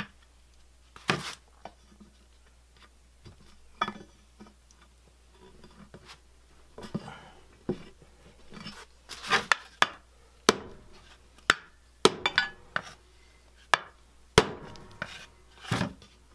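Rubber mallet tapping new rubber grommets down into an LS engine's metal valley cover, at first through a scrap of plywood: irregular knocks, about a dozen, some in quick pairs, with the rustle of the parts being handled between them.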